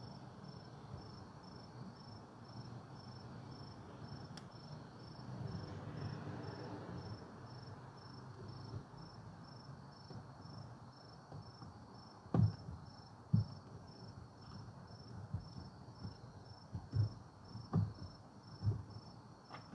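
Crickets chirping in a steady, rapid pulse, with a few short soft knocks and clicks in the second half from hands handling parts at the headlight housing.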